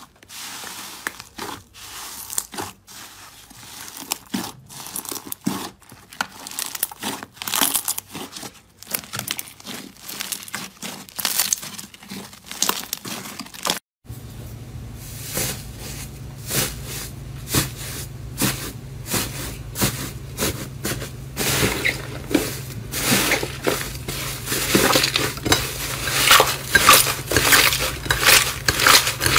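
Hands working slime: wet, sticky pops and clicks as a runny slime is poked and pulled. About halfway through it changes to a denser crunchy crackling as a crumbly textured slime is squeezed and broken apart, with a steady low hum behind it.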